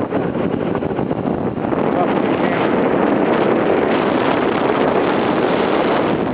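Snowboard sliding down a run, its base and edges hissing and scraping over the snow, with wind rushing over the handheld camera's microphone. The rush gets louder about two seconds in.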